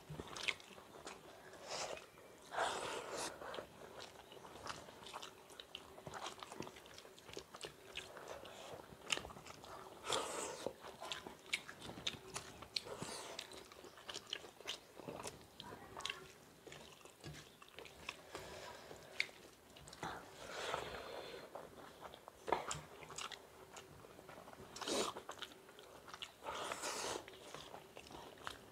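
Close-miked chewing and biting as two people eat rice and bhurji with their hands, with irregular short sharp clicks and several louder mouthfuls.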